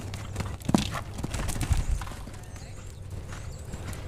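Horse cantering on the sand footing of an arena, its hoofbeats thudding irregularly, with two louder thumps in the first two seconds.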